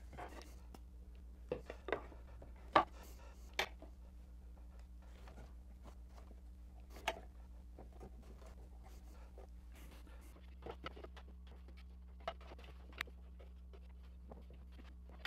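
Light knocks and clicks of wooden paddle-blade strips and aluminium bar clamps being handled during a glue-up, scattered and irregular, the sharpest knock about three seconds in, over a steady low hum.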